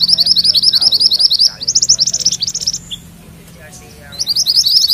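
Yellow mantenan songbird singing a fast rolling trill ('ngerol'), breaking into a few louder separate notes about two seconds in, pausing for about a second, then trilling again near the end.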